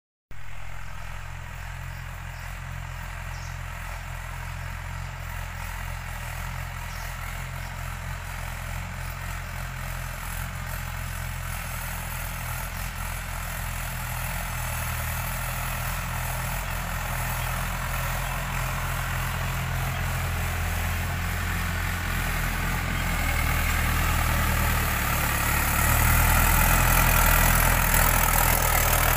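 Mahindra 585 DI tractor's four-cylinder diesel engine running steadily while pulling a tine cultivator through the soil. It grows gradually louder, most of all near the end.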